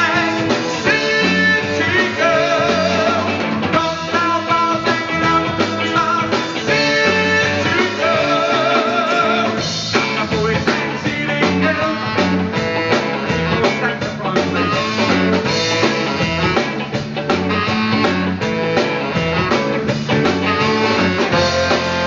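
Live band playing a song: saxophone, electric guitars, bass guitar and drums, with a male lead vocal.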